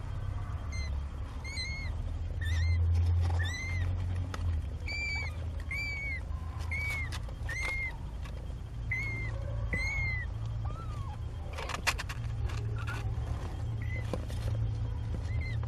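Two-week-old kitten mewing: a dozen or so short, high mews in quick succession, each rising then falling in pitch, with a pause a little past the middle and a couple more near the end, over a low steady rumble.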